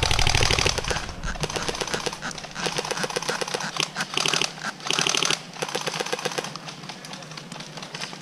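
Airsoft electric guns firing automatic in several short bursts of rapid, even clicks, the loudest burst at the start.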